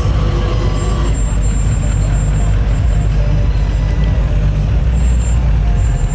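Steady, deep engine rumble of a lifted pickup truck rolling past.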